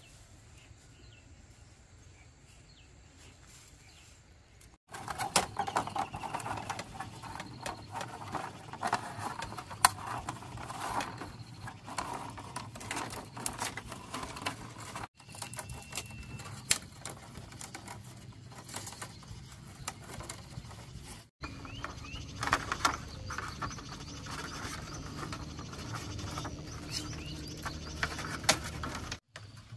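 Split bamboo strips clicking, scraping and rustling as they are threaded and woven by hand into a fish-catching basket, in several takes separated by brief breaks. The first few seconds are quieter.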